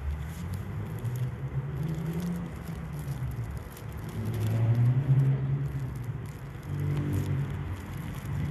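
A road vehicle's engine rumbling past, loudest about halfway through.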